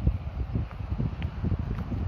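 Wind buffeting the microphone: irregular low rumbling thumps over a steady rush of noise.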